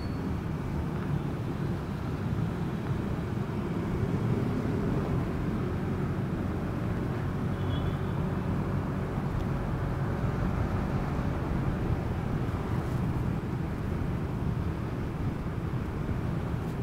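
Motorcycle riding in traffic: steady engine and road noise throughout.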